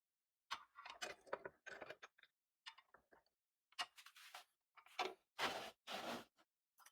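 Irregular clicks, scrapes and rattles of small hard objects being handled, coming in short clusters with a longer scraping stretch near the end.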